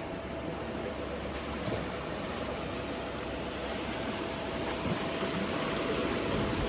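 Sea waves washing steadily on the shore, with a faint steady hum underneath.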